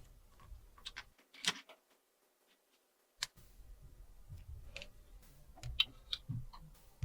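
Scattered light clicks and taps of small plastic toy pieces being handled and set down, with a near-silent stretch between about one and three seconds in.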